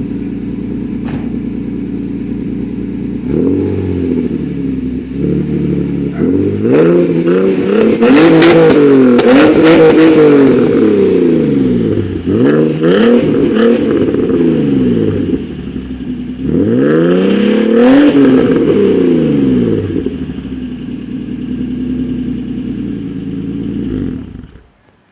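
Nissan 350Z's 3.5-litre V6 running through a newly changed muffler, with a louder, sportier tone: idling, then revved in a run of quick rises and falls, a short lull, two more revs, and back to a steady idle before the sound cuts off near the end.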